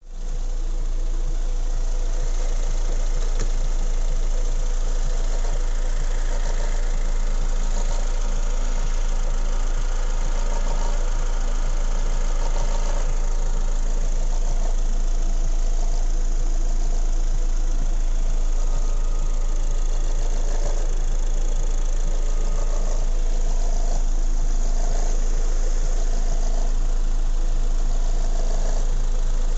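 Honda Accord 2.4-litre four-cylinder engine running steadily at idle. It carries an extraneous noise that the owner wants identified.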